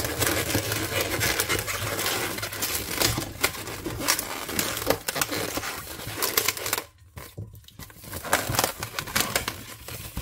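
260 latex modelling balloons rubbing and squeaking against each other and against the hands as one balloon's nozzle is wrapped around a twist in another. A busy run of small rubbing sounds and squeaks, with a short lull about seven seconds in.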